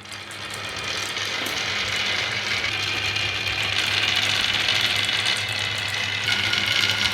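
Many marbles rolling and clattering down a wooden HABA marble-run slope: a continuous rattling that builds over the first second or two, then holds steady.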